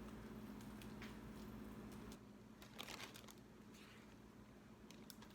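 Near silence: faint rustling and scraping as raw chicken breast is handled and cut up, with a brief louder rustle about three seconds in, over a low steady hum.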